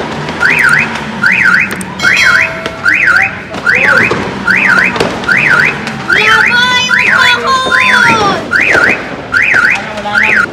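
Car alarm siren sounding a steady, repeating up-and-down electronic wail, a bit more than one cycle a second.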